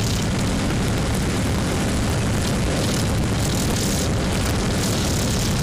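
Steady drone of a sailboat's engine as it motors under bare masts, mixed with a dense rush of wind and water noise.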